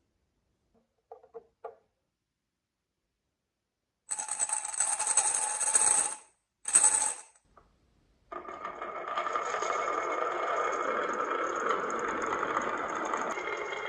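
Marbles clattering and rolling on a marble run. A few light clicks come first, then two dense bursts of clatter, then a steady rattling run from about eight seconds in.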